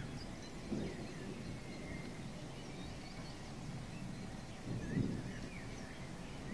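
Faint birds chirping over a low, noisy outdoor background that swells twice, briefly, the second time more strongly about five seconds in.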